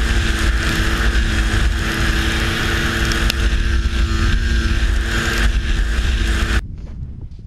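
Snowmobile engine running at a steady speed while riding, with wind buffeting the microphone; the sound cuts off abruptly near the end.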